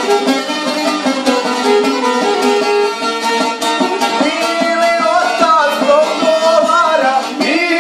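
Šargija, a long-necked plucked lute, strummed in a steady rhythm with a violin playing the melody, traditional Bosnian izvorna style. In the second half a wavering higher melody line comes in, a man's singing voice joining the instruments.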